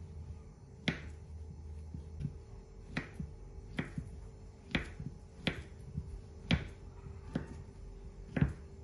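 Knife cutting through a banana and knocking on a wooden cutting board: about eight short, sharp knocks at an uneven pace, roughly one a second.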